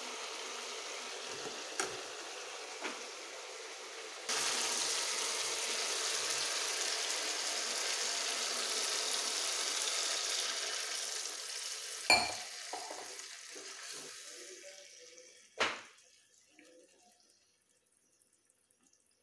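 Potato and cauliflower frying with a steady sizzle in a metal wok, with a couple of light spoon taps. About four seconds in, water is poured in from a steel mug and a louder, hissing rush of pouring and sizzling takes over, ended by a sharp metallic clink about twelve seconds in. The sizzle then fades and a second clink of metal on the pan follows.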